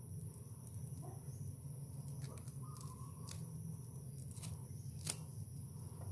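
Three-strand twisted rope being handled as its strands are tucked back for a back splice: faint rubbing with several sharp clicks, the sharpest about five seconds in. A steady low hum and a thin high whine run underneath.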